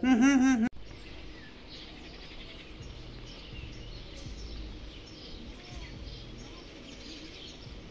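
Outdoor ambience with birds chirping faintly on and off over a steady low background hum. A woman's voice is heard briefly at the very start, cut off abruptly.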